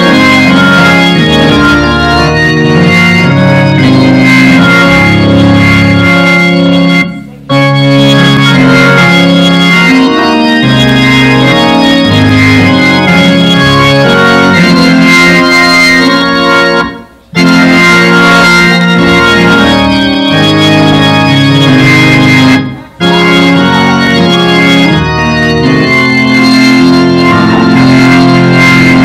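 Organ music: slow, sustained chords that change every second or two, breaking off briefly three times before coming straight back in.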